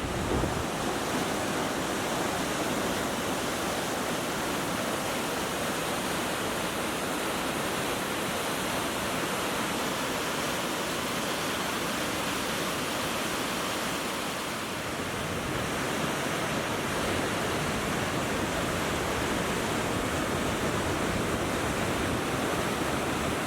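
Steady rush of fast-flowing creek water, an even hiss that holds at the same level throughout.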